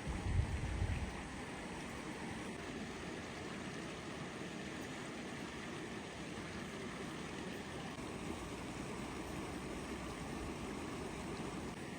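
Steady rushing outdoor ambience, with a brief low rumble in the first second.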